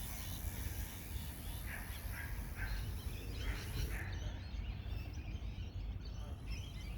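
Faint birdsong outdoors: a handful of short chirps over a couple of seconds, above a low, steady rumble.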